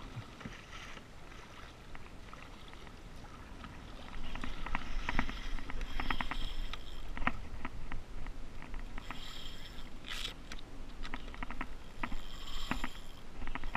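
Water splashing and dripping around a kayak, with many short irregular splashes starting about four seconds in after a quieter, hissing start.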